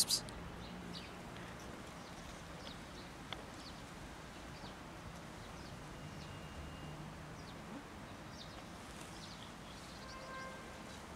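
Cats crunching dry kibble from a plastic tub: scattered small, faint crunching clicks, with one sharp click at the very start. A short faint call is heard about ten seconds in.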